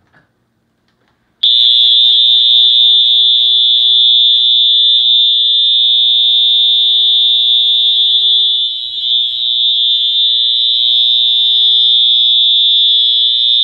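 Wheelock EHS-EL1 electronic fire alarm horn sounding a very loud, steady, continuous high-pitched tone, triggered by the test button of a System Sensor i3 smoke detector on the same panel. It starts about a second and a half in and cuts off suddenly near the end.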